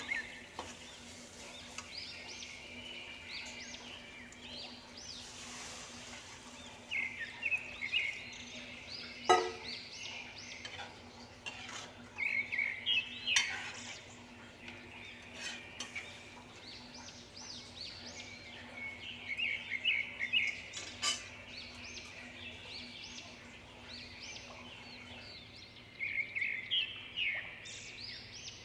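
A bird chirping in recurring bouts of quick high notes, mixed with three sharp clinks of a steel spatula against an iron kadhai as the curry is stirred. A faint steady hum runs underneath.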